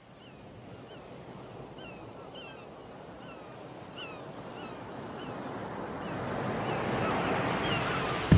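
Sea waves and surf washing, fading in from silence and growing steadily louder, with a bird giving short, falling calls over and over. Music begins abruptly right at the end.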